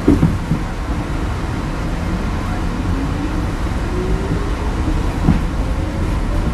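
Inside a New York City subway car on the 6 line as it pulls out of a station: a couple of clunks at the start, then the motors' whine rising in pitch as the train picks up speed over a steady rumble, and another clunk about five seconds in.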